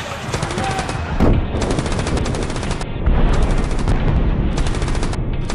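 Battle sound effects: repeated bursts of machine-gun fire, with a heavy boom about a second in and deep rumbling explosions from about three seconds, over background music.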